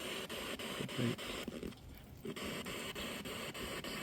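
Ghost-hunting spirit box sweeping the radio band: a steady hiss of static chopped at a regular fast rate, with a short voice-like fragment about a second in.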